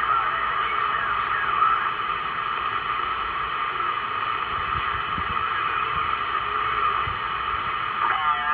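Steady hiss and static from a President Lincoln II+ CB radio's speaker on channel 38 lower sideband, with no clear station and several faint steady tones under the hiss. Just before the end a warbling sideband voice starts to come through the noise.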